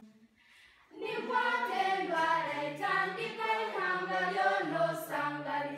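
A group of voices singing together, a choir song that starts about a second in after a moment of silence and holds steady notes that move in steps.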